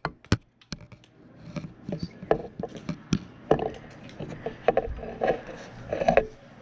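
Irregular knocks, clicks and scrapes of a front door being opened and handled, mixed with rubbing from the camera being handled close to the microphone.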